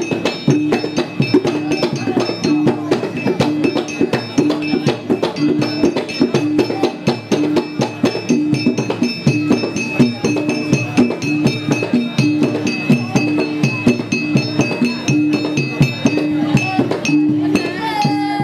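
Percussion-led Malay silat accompaniment music: fast, even drum strokes over a low tone pulsing in a steady repeating rhythm.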